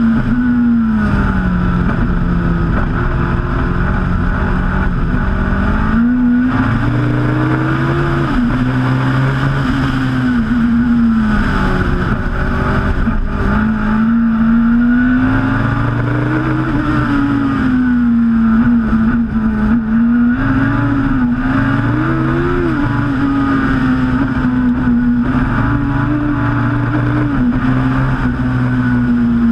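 Westfield Megabusa Turbo's turbocharged Suzuki Hayabusa four-cylinder engine at race pace, heard from on board, its note rising and falling over and over as the revs climb and drop.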